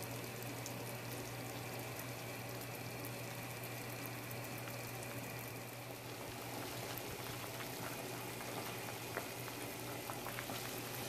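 Pot of corn on the cob boiling hard in coconut milk and water: a steady bubbling with many small pops at the surface, over a low steady hum.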